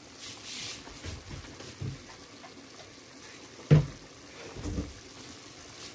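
Spoon stirring a thick sauce in a pan: quiet stirring and soft bumps, with one sharp knock against the pan a little under four seconds in.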